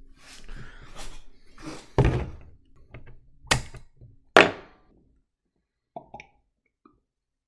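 Knocks and a heavy thump of things being handled, then two sharp clicks about a second apart as a bottle opener levers the crown cap off a glass Corona Extra beer bottle, the second click the loudest. Only a few faint small sounds follow.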